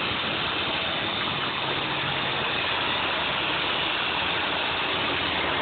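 A steady engine running at idle under a constant hiss, unchanging throughout.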